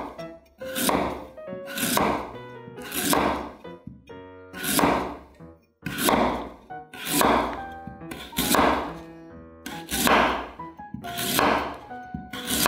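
Kitchen knife slicing through a raw sweet potato and thunking onto a wooden cutting board, about nine slow, even cuts, one every second or so, each a short crisp cut ending in a knock on the board.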